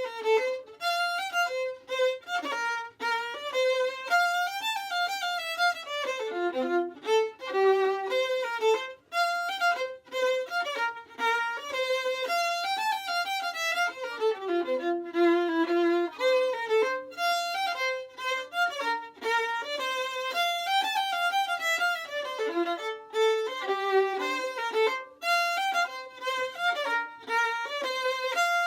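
Solo fiddle playing a strathspey in F major, a single unaccompanied melody line moving note by note.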